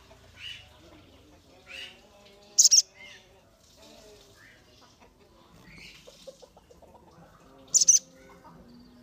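Sogon sunbird calling: short, thin high chirps and two loud, sharp, very high twittering bursts about five seconds apart.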